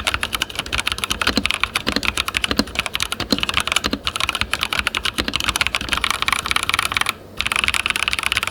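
Zifriend T62 mechanical keyboard with linear red switches being typed on quickly: a dense, continuous run of key clacks, broken by a short pause about seven seconds in.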